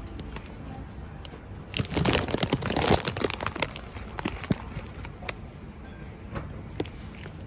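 Crinkling, rustling noise close to the microphone for about two seconds, starting a couple of seconds in, with a few scattered clicks around it over a steady low background hum.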